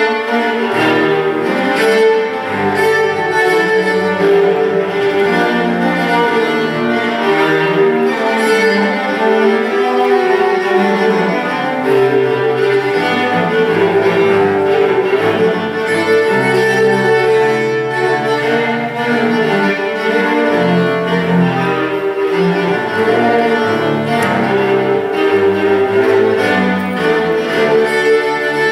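Viola and cello duo playing contemporary chamber music with bowed, sustained notes: a held upper line recurs over shifting lower notes.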